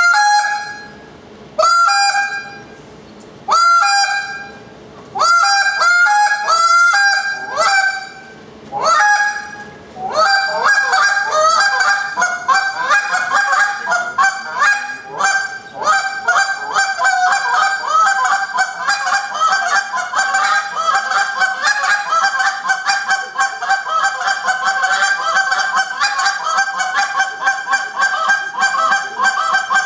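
A hand-held goose call blown to imitate Canada geese: single honks that break from a low note to a high one, one every second and a half or so, then from about ten seconds in a fast, unbroken run of short clucks and honks.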